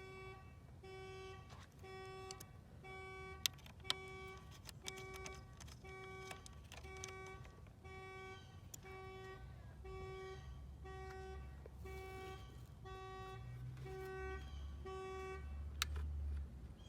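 A Chevy Silverado's warning chime sounding steadily about once a second, with a few sharp clicks of handling. Near the end a low rumble comes in and stops suddenly.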